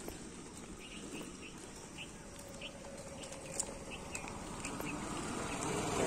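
Quiet outdoor ambience with scattered short, high chirps and a few soft ticks, over a low background hum that slowly grows louder.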